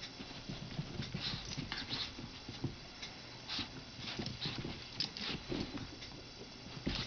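Two papillon puppies play-fighting: an uneven run of short, small growls and scuffling sounds from the tussle.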